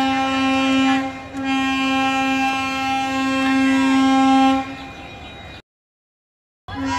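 Passenger train's horn sounding on one long steady note, with a brief break about a second in. It cuts off abruptly about five and a half seconds in and starts again on the same note near the end.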